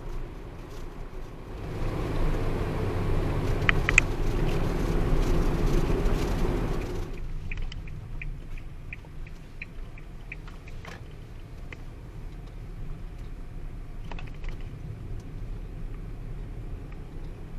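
Heavy rain and wind on a parked car, heard from inside the cabin. A louder rush of rain lasts from about two seconds in to about seven, then the wind rumble continues with scattered drips ticking on the body.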